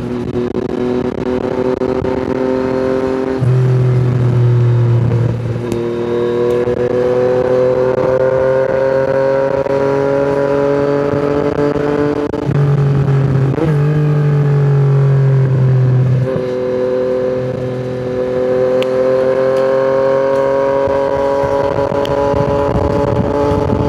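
Yamaha MT-09's three-cylinder engine through an Akrapovic exhaust, running on the move under throttle. Its note rises slowly and steps in pitch at several gear changes, about 3.5, 12.5 and 16 seconds in.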